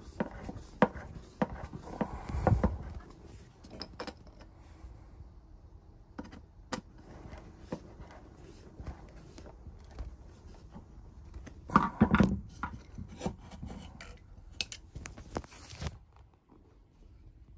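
A screw being driven by hand with a screwdriver through a metal fingernail clipper into a block of 2x4 wood: scattered clicks, creaks and knocks of the screw and the tool working. The louder knocks come about two seconds in and again about twelve seconds in.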